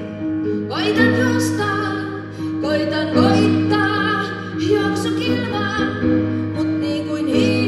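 A woman singing a slow song, holding long notes, to her own upright piano accompaniment.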